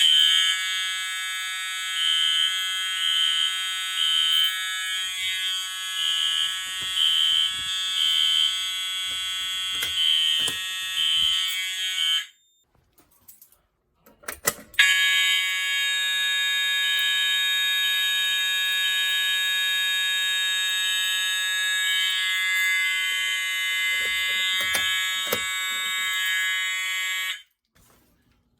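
Fire alarm horns sounding on a fire alarm system test: a steady, loud horn tone with a pulsing beep riding over it. The horns cut off about twelve seconds in, stay silent for about two seconds, then sound again for about thirteen seconds and stop shortly before the end.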